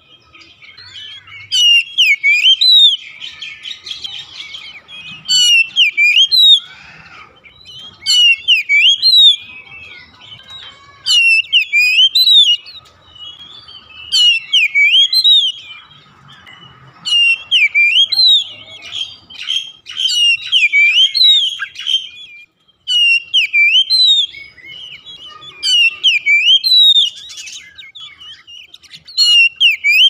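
Oriental magpie-robin singing: loud, clear phrases of rising and falling whistled notes, one every two to three seconds, with softer twittering between them.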